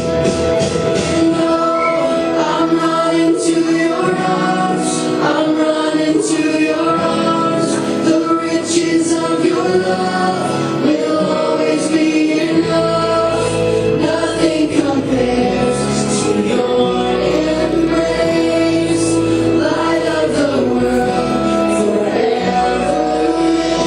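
A song with group singing over instrumental backing; a deep bass part comes in about halfway through.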